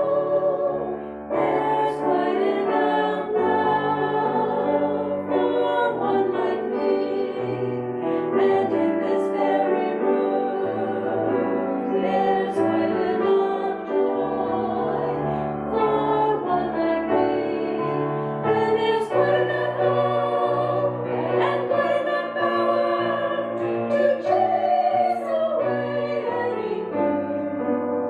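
A small ensemble of four women singing together from music folders, over a low instrumental accompaniment.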